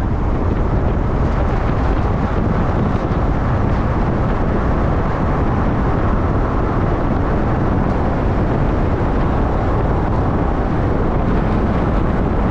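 Steady rush of wind and road noise from a moving 4x4, heard through a phone microphone held out of the side window.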